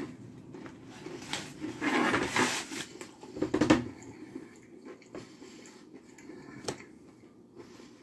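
Close-up chewing of a mouthful of crispy fried chicken sandwich. Two louder crunchy stretches come in the first four seconds, then quieter chewing with a few faint clicks.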